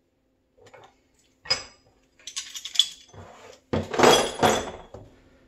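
Dishes and cutlery clattering and clinking as they are handled, in several separate bursts with a bright ringing note or two. The loudest clatter comes a little under four seconds in.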